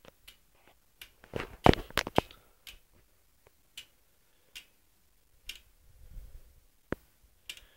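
Scattered clicks and knocks: a quick run of louder ones about one and a half seconds in, then single clicks about a second apart.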